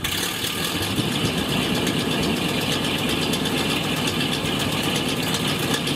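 Windsor carrier's Ford flathead V8 engine idling steadily.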